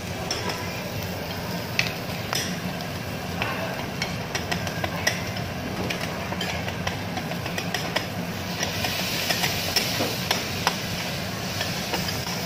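Metal spatulas clacking and scraping on a teppanyaki flat-top griddle, sharp irregular clicks over the steady sizzle of meat frying in oil; the sizzle grows louder about two-thirds of the way in.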